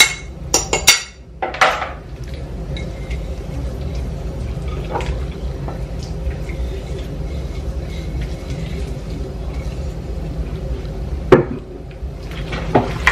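A bowl clinking against a glass mixing bowl as a thick marinade is poured and scraped onto raw chicken: several sharp clinks in the first two seconds and one loud knock near the end, over a steady low hum.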